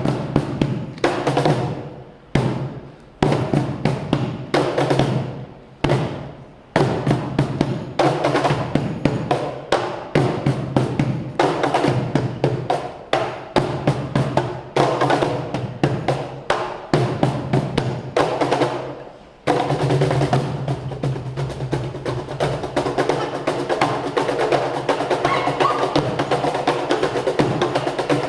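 Tap shoes striking the floor in fast rhythmic phrases over music, the phrases broken by short pauses at first and then running on without a break from about two-thirds through.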